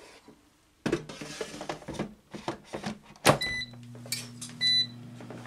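Air fryer basket pushed back into a Gourmia air fryer, clattering and sliding, then shutting with a sharp clunk about three seconds in. The fryer beeps twice as its touch panel is pressed, and its fan starts a steady low hum.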